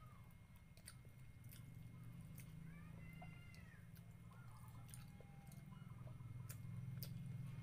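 A cat meowing faintly a few times, the clearest call about three seconds in, over small wet clicks of someone eating fish and rice by hand and a low steady hum.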